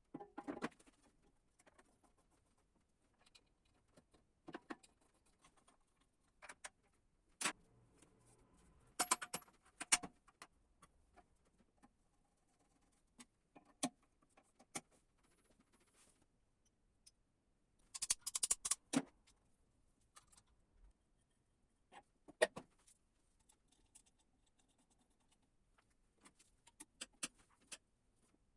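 Scattered clicks, taps and light rattles of small hard parts being handled, coming in short clusters with quiet gaps between; the busiest, loudest cluster is about 18 seconds in.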